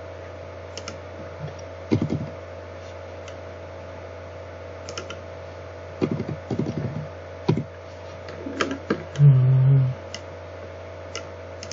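Scattered computer mouse and keyboard clicks, with a few soft desk knocks, over a steady low electrical hum. About three-quarters of the way through comes a short, low steady tone, the loudest sound.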